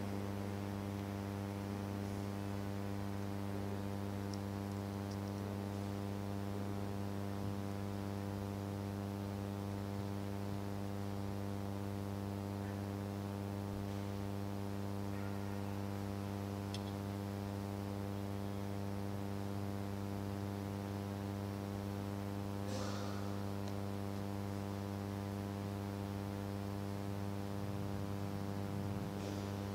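Steady electrical mains hum in the sound system's feed, with a few faint clicks and one brief scuff about three-quarters of the way through.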